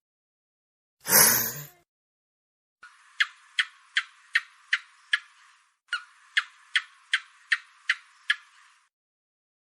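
Gecko calling: two runs of sharp, evenly spaced chirping clicks, about seven in each at roughly two and a half a second, after a short loud noisy burst about a second in.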